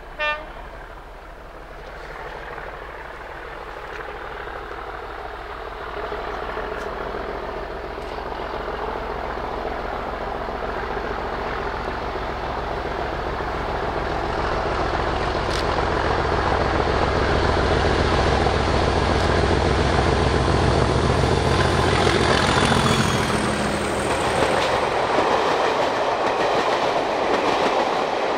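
A diesel-hauled passenger train approaching and passing: the leading Class 37 locomotive's English Electric V12 engine grows steadily louder, its note dropping as it goes by about three-quarters of the way through, followed by the rush and clickety-clack of the coaches. A brief high-pitched tone sounds right at the start.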